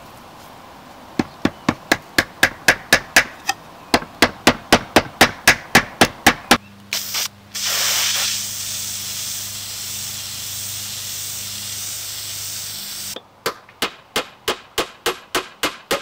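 A claw hammer driving small nails into a wooden bird-feeder house, about four even strikes a second for several seconds. Then an aerosol spray-paint can gives two short puffs and a long, steady hiss as it paints a plywood roof panel. Near the end the hammer starts again, about ten more strikes at the same pace, nailing the painted plywood roof on.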